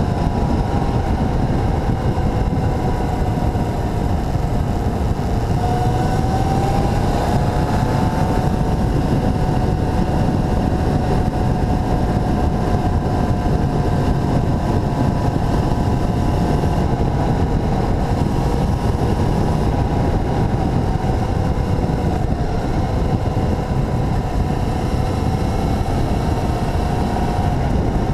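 Motorcycle engine running steadily on the move, its note drifting up and down a little with speed, under heavy wind rush on the action camera's microphone.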